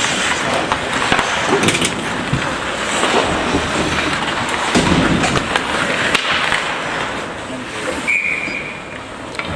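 Ice hockey play in a rink: skates scraping on the ice and scattered sharp clacks of sticks and puck, with voices calling out. A short high whistle sounds near the end.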